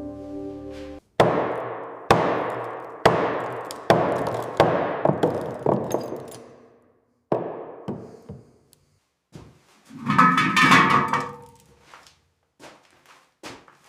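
Heavy hammer blows, about one a second for several seconds, each ringing out with a long echo. A denser burst of clattering follows around ten seconds in, then a few lighter knocks. A held musical tone stops about a second in.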